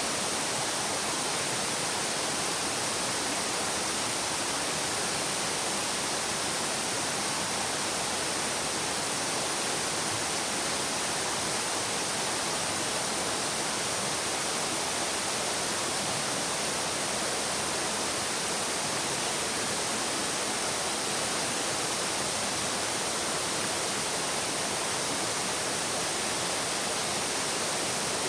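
Babbling stream: water flowing and splashing over stones in a steady, even rush that does not change.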